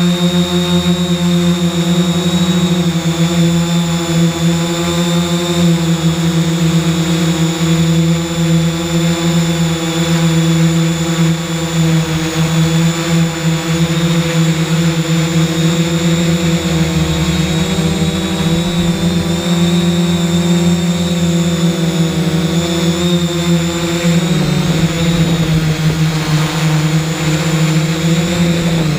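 3DR X8 multirotor's eight electric motors and propellers humming steadily, recorded from the camera on board the drone; the pitch shifts slightly a few times in the second half as it manoeuvres.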